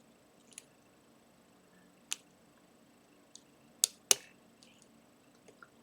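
Lock pick and tension wrench working the pins of a pin-tumbler challenge lock: a few sharp metallic clicks, two in quick succession about four seconds in, as pins are lifted and set during single-pin picking.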